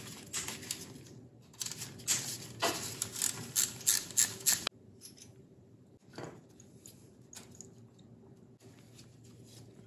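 Irregular metallic clicks and clinks of a hand tool undoing the small speed-sensor bolts on a motorcycle. The clicking cuts off suddenly about halfway through, and only a few faint ticks follow.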